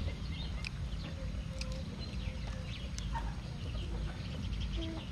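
Chickens clucking in the background with a few small chirps, over a steady low rumble.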